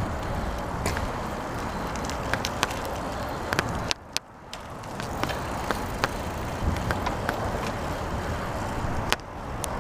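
Riding noise from a bicycle on a paved path: a steady rumble of tyres and wind, with scattered light clicks and rattles. It drops away briefly about four seconds in, then picks up again.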